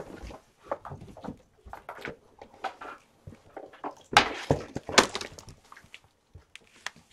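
Kittens moving about and playing: scattered light knocks, taps and thumps, with a louder clattering rustle about four seconds in.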